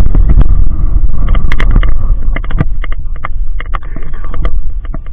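Loud low rumble of wind and handling noise on a chest-mounted camera's microphone, fading a little towards the end, with scattered sharp clicks and small splashes as a rainbow trout is held in the shallow water and let go.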